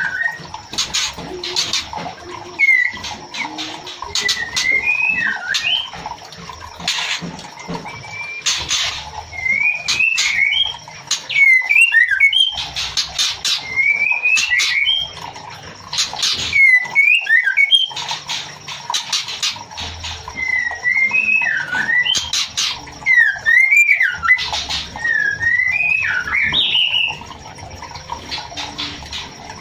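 Female white-rumped shama calling: short whistled phrases that rise and fall, repeated every second or two, mixed with clusters of sharp clicking notes.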